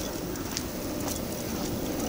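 Steady outdoor background rumble and hiss on a phone microphone, with a few faint ticks.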